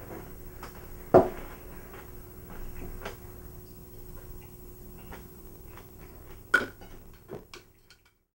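Tableware clinking during a meal: chopsticks and dishes knocking a few times, the loudest about a second in and another strong knock near the end, over a steady low room hum. The sound cuts off abruptly about eight seconds in.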